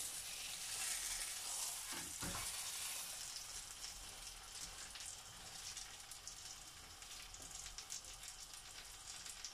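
Keema paratha frying on a tawa: a steady soft sizzle, loudest in the first three seconds, with a couple of light knocks about two seconds in.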